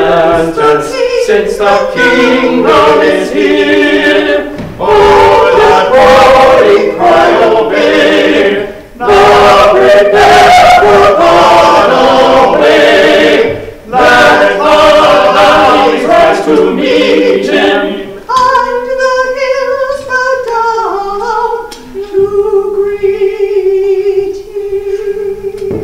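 A small church choir singing a hymn in phrases with short breaks, growing quieter about eighteen seconds in and ending on a long held note.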